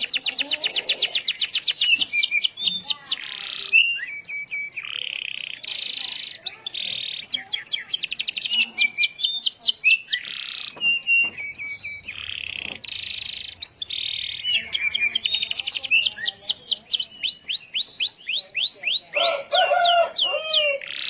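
Canary singing a continuous, fast song: rapid trills of repeated sweeping notes, several a second, broken by short buzzy rolls.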